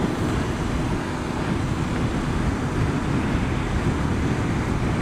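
Steady wind and road rush on a helmet-mounted camera while riding a Honda VFR800 VTEC motorcycle, with the low drone of its V4 engine underneath at a constant cruising speed.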